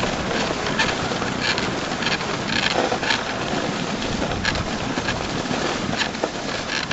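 Dog sled moving over snow behind a running dog team: a steady hiss and rumble from the runners, with irregular sharper scrapes.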